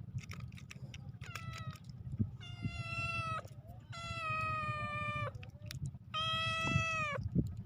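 Domestic cat meowing repeatedly: one short meow, then three long, drawn-out meows of about a second each, holding a steady pitch.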